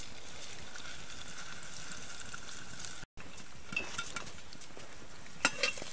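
Popcorn kernels heating in melted butter in a small pot over a campfire, sizzling steadily, with a few light clicks and taps in the second half. This is the stage just before the kernels start popping.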